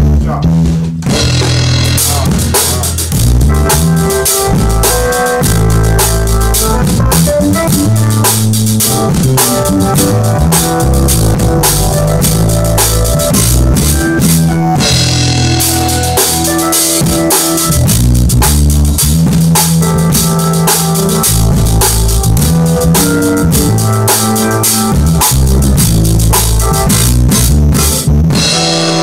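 Drum kit played in a steady groove with a band, cymbal and drum hits over a bass line that moves in steps underneath.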